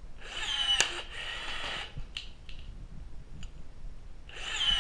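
CUBE BR-50 18-volt cordless blind rivet tool's motor whirring as it pulls a rivet, with a sharp snap as the mandrel breaks about a second in. The motor runs on and stops near two seconds, and a second pull starts near the end.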